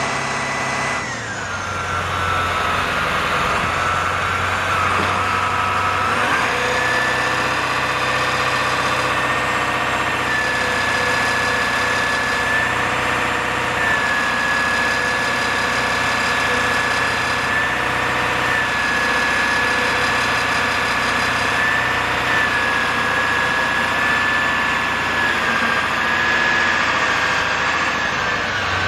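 International T444E 7.3L V8 diesel running at a steady idle, driving the PTO hydraulics of an Altec digger derrick while the boom is worked. A steady high whine from the hydraulics drops in pitch about a second in, rises again around six seconds in, and shifts slightly several more times as the controls are moved.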